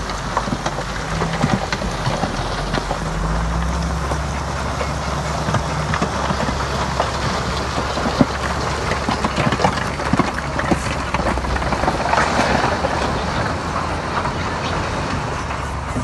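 Heavy diesel earthmoving machinery running steadily, with dense clatter and scattered knocks over the engine hum; the engine note shifts up about three seconds in.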